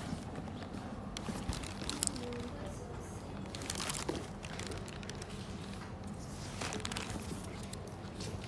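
Packaging being handled during a bag unboxing: irregular rustling and crinkling with a few sharp clicks.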